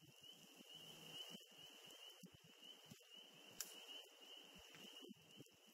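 Near silence: faint wind buffeting the microphone under a steady, faint high-pitched tone, with a single click a little past halfway.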